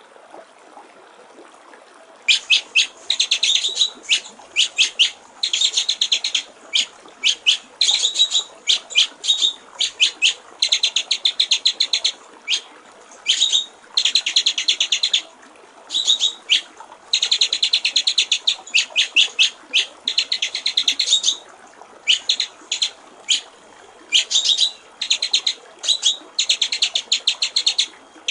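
White-rumped shama (murai batu) singing in fast, rattling phrases of rapidly repeated high notes, starting about two seconds in and broken by short pauses, over a steady trickle of running water.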